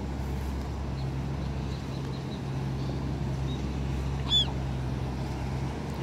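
A steady low rumble with a constant low hum underneath, and about four seconds in a single short, high-pitched call from a gull.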